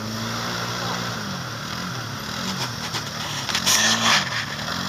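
ATV engine revving up and down again and again while the machine is bogged down in deep mud, with a short louder rush of noise about four seconds in.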